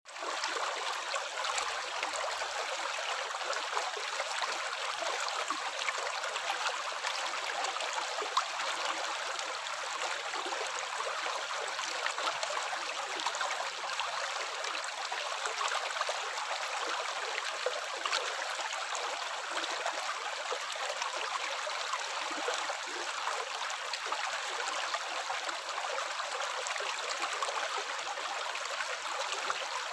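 Running water with a steady trickling, splashing hiss that holds level throughout.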